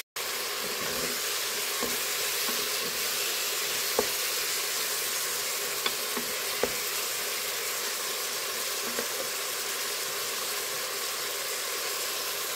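Tripe and chopped vegetables sizzling steadily in the hot inner pot of a Moulinex Cookeo electric multicooker, as the tripe gives off its water and it boils away. A few short knocks come from a wooden spoon stirring against the pot.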